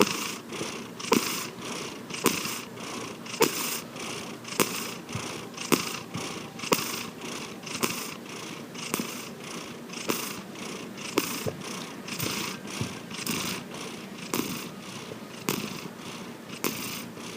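Domestic cat snoring in its sleep, a rhythmic rasp about once a second.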